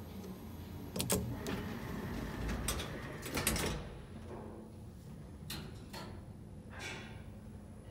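Old lift car's sliding doors running shut, with a sharp click about a second in and a rushing rumble that peaks near the middle. Three separate sharp clicks follow, spaced under a second apart.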